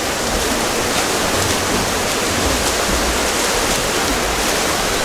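Steady rushing and splashing of water as players swim and churn the water of a swimming pool during a water polo game, with a few faint sharper splashes over the constant wash.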